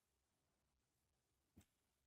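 Near silence, broken by a single faint click about one and a half seconds in.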